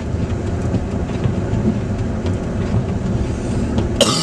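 Car driving on a snowy road, heard from inside the cabin: a steady low rumble of tyres and engine, with a sharp knock near the end.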